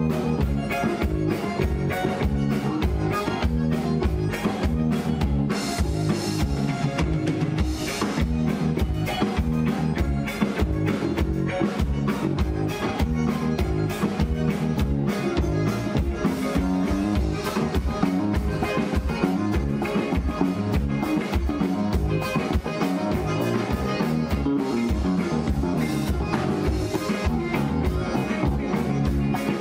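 Live band playing gaúcho regionalist music on accordion, electric guitar, electric bass and drum kit, with a steady drum beat.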